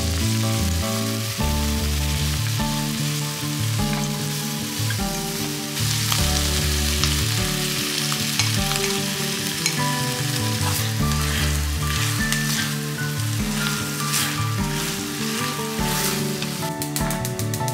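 Cabbage and chicken breast sizzling in a frying pan as they are stir-fried, with a louder stretch of sizzling about six seconds in and sharp clicks through the second half.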